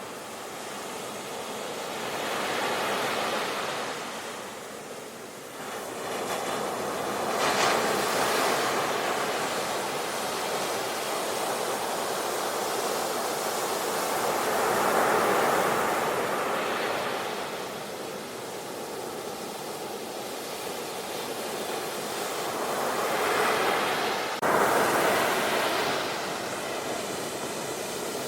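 Sea waves breaking and washing in: a steady rush of surf that swells and fades every few seconds. Near the end the sound briefly drops out and comes back suddenly louder.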